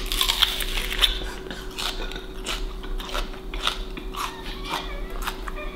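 A bite into a whole raw onion followed by crisp chewing of the mouthful, a run of many short crunches.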